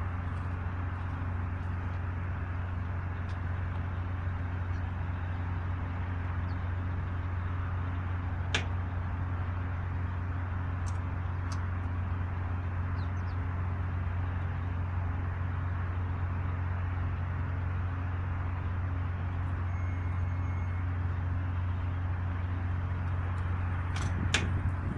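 Caterpillar excavator's diesel engine idling steadily, with a few faint clicks, one a little clearer about a third of the way in.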